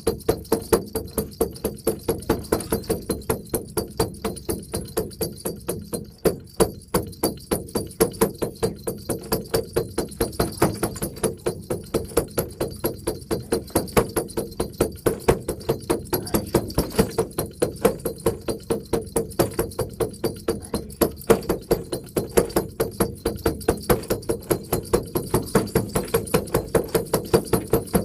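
Mongolian shaman's frame drum beaten in a steady, fast pulse of about four strokes a second, drumming to take on his grandfather spirit.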